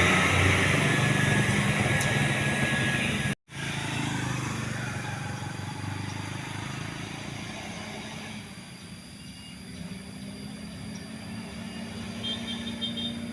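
A heavy vehicle's engine, most likely a bus, running and fading away. After a brief cut there is steady, quieter road traffic noise, with a few faint quick beeps near the end.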